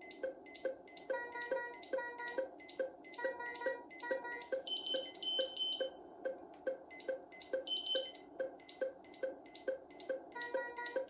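Philips IntelliVue MP30 patient monitor sounding an alarm: repeating groups of short two-pitched beeps over a steady, fast heart-rate beep about twice a second. A higher-pitched tone pulses three times about halfway through and once more near the end.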